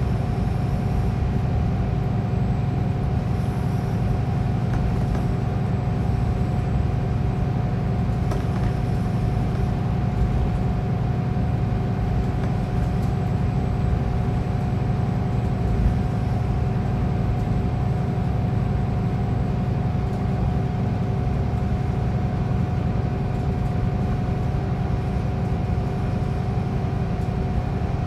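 Scania K410EB6 coach with Caetano Levante 3 body heard from inside the passenger cabin while under way: a steady low diesel drone with road noise and an even, steady hum above it, with no change in speed or gear.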